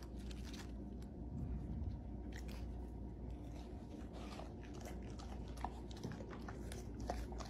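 Soft, irregular crunching and crackling of crisp lettuce leaves over a steady low hum.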